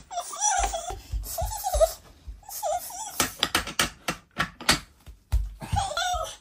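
A toddler's high-pitched voice in short bursts, squealing or giggling, with a run of clicks and knocks from wooden toy train track pieces being handled in the middle of the stretch.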